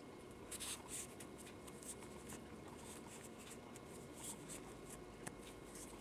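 Faint rustling and scratching of hands working crochet thread on a metal crochet hook: a series of soft, short swishes as the stitches are made.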